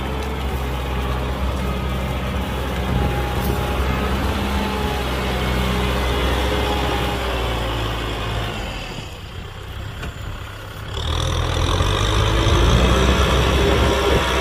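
Kubota M6040 SU tractor's four-cylinder diesel engine running steadily. It drops in level about nine seconds in and comes back louder about two seconds later.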